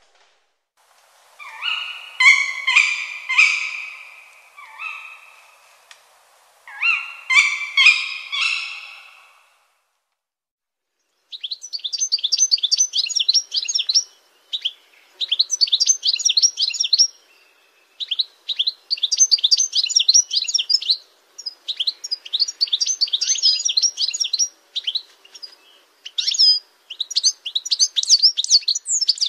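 Songbirds singing. First come two phrases of full whistled notes, then, from about eleven seconds in, a run of rapid high trilled phrases, each two to three seconds long with short pauses between.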